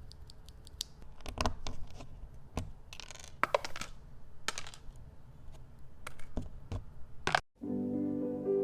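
Small plastic clicks and short scrapes of mechanical keyboard switches being handled and worked on, irregular rather than rhythmic. Piano music starts abruptly about a second before the end.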